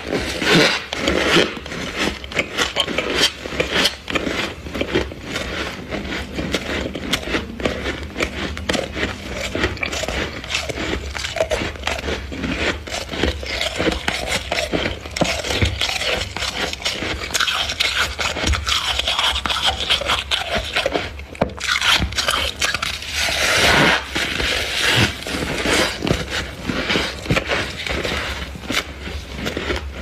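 Soft humidifier-grown freezer frost being scraped and scooped by a plastic-gloved hand: a continuous crunching and crackling made of many fine clicks.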